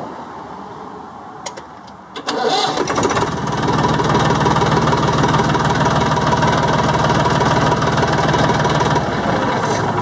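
1995 TAFE 35 tractor's diesel engine started on the key: two short clicks, a brief crank, then it catches and runs steadily. Near the end its revs drop a little. The start comes through the suspect starter switch, which this time lets it fire right up instead of giving only a click.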